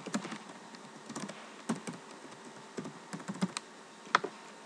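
Typing on a computer keyboard: a dozen or so irregular, scattered keystrokes as a username and password are entered.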